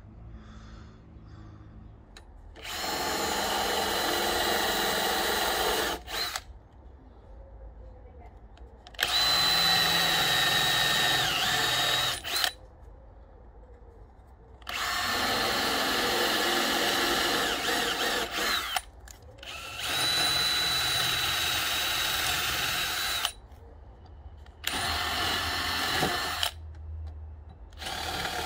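Cordless drill boring holes into a thick pine board, in six runs of a few seconds each with short pauses between. The motor holds a steady pitch through each run.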